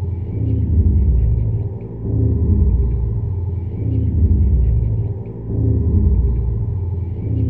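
Deep, low rumbling drone that swells and dips about every three and a half seconds, with faint crackling ticks above it.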